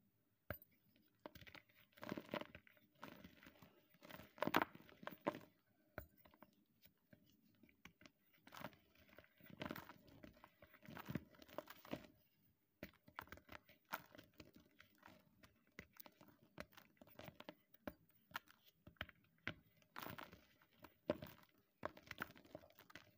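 Blocks of gym chalk crunching and crumbling as hands squeeze and break them into loose chalk powder: irregular soft crunches and gritty crackles, the sharpest about four and a half seconds in and again around ten seconds in.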